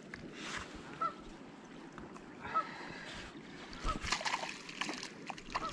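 A bird honking in short, identical calls about every second and a half, over a steady background hiss. In the second half, splashing and rustling as a fish is handled and let go into shallow muddy water in wet grass.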